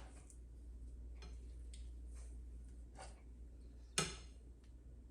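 Metal kitchen tongs clicking and tapping against a pan as chicken pieces are placed in it: a few light clicks, then one sharper metallic clink with a short ring about four seconds in.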